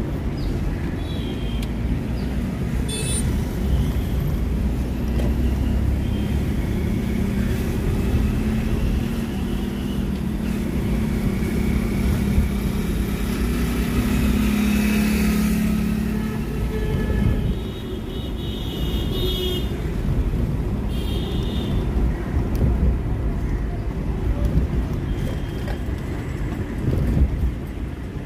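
A car driving through city traffic, heard from inside the cabin: a steady low rumble of engine and tyres, swelling a little around the middle. A few brief high-pitched tones come through near the start and twice about two-thirds of the way through.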